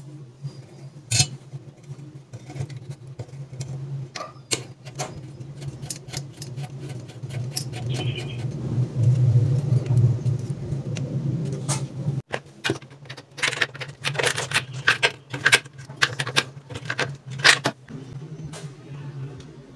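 Small metal clicks and clinks of a braided supply hose's coupling nut being handled and threaded onto a chrome angle valve, coming more often and louder in the second half, over a steady low hum.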